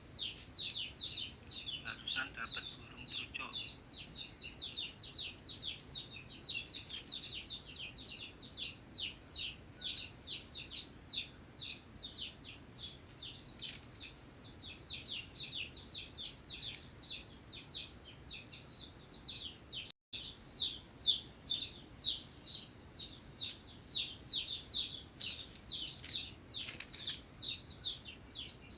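Birds calling: a rapid, steady series of short high notes, each sweeping downward, several a second. The sound cuts out for an instant about twenty seconds in.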